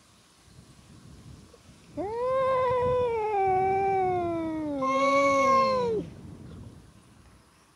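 Stray cat yowling in a territorial standoff with another cat: one long, drawn-out caterwaul starting about two seconds in and slowly falling in pitch over about four seconds, turning briefly higher and harsher near its end.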